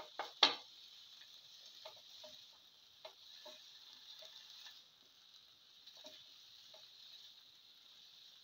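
Plastic spatula stirring and turning potato and bottle gourd pieces in a frying pan: irregular light clicks and scrapes against the pan, the loudest about half a second in, over a steady faint hiss of frying.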